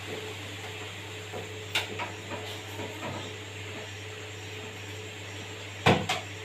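Steady low hum with a few light clicks, and a sharp double knock about six seconds in: hands working on parts of a water purifier.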